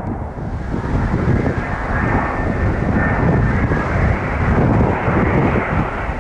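Jet engine noise from a Qatar Airways Airbus A350-900's Rolls-Royce Trent XWB turbofans, a dense rumble that grows louder about a second in, with a faint high whine for a couple of seconds. Wind buffets the microphone.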